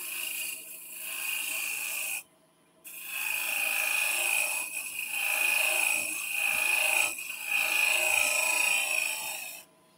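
Skew chisel shear-scraping a spinning wooden bauble half on the lathe: a steady hissing scrape in two passes, the first about two seconds long, then a brief pause and a longer pass of about seven seconds, as the shape is refined. A faint steady hum runs underneath.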